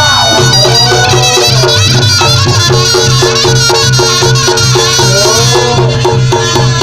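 Reog Ponorogo gamelan playing: a reedy slompret (shawm) melody bending up and down over a steady, quick beat of drums and gongs.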